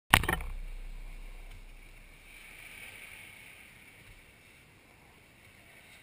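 A sharp knock at the very start, then the faint steady hiss of small waves washing onto a sandy beach, swelling slightly about three seconds in.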